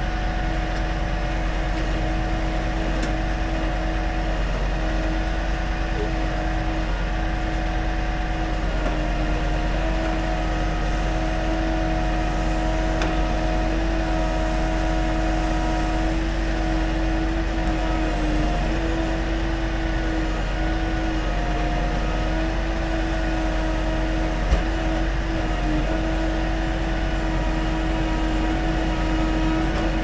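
Timber truck's diesel engine running at a steady raised speed to power its truck-mounted crane, a constant hum with a low rumble whose pitch dips slightly several times as the crane works. One brief knock about three-quarters of the way through.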